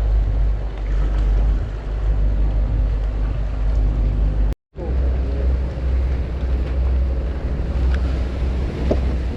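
Heavy wind rumble buffeting the microphone at the waterside, a steady low roar. It breaks off to silence for a moment about halfway through.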